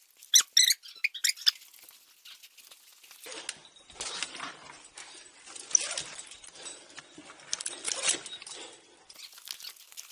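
Climber ascending a rope: a quick run of high squeaks in the first second and a half, then irregular scraping, rustling and clicking of rope, climbing gear and clothing.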